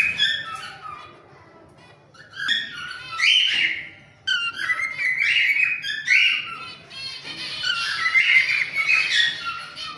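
Cockatiels chattering and whistling in bouts of a couple of seconds, with short pauses between.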